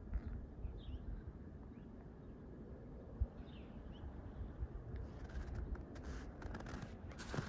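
Footsteps crunching in snow, starting about five seconds in and getting louder near the end. Before them, a few short, faint bird calls over a low rumble.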